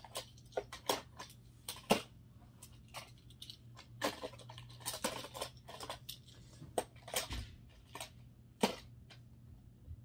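Die-cast Hot Wheels toy cars clicking and clattering against each other and a plastic carrying case as a hand rummages through them. Irregular sharp clicks, with a few louder knocks.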